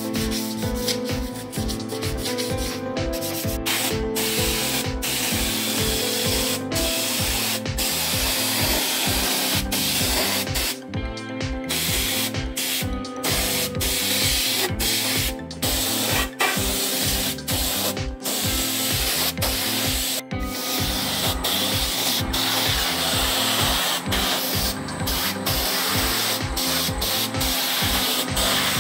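Wood being sanded with a power sander: a continuous rasping hiss over a steady motor hum, broken by short abrupt gaps. Faint background music sits underneath.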